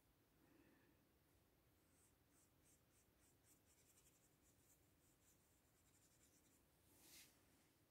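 Faint strokes of a watercolour brush on paper: a run of short, soft scratches, with one longer stroke near the end.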